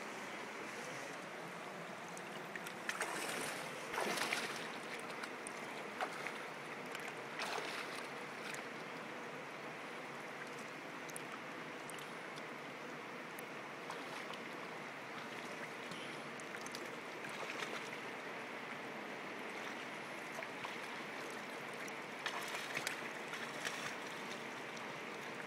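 Shallow river running over stones, a steady rush of water, with a few brief louder sounds about three to four seconds in, around six and seven seconds, and again near the end.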